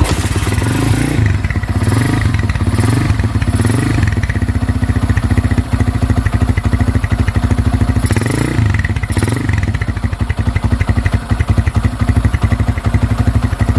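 Motorcycle engine running loud and being revved in short blips, a few in the first seconds and twice more past the middle. The owner takes its state as one that calls for an engine teardown and rebuild.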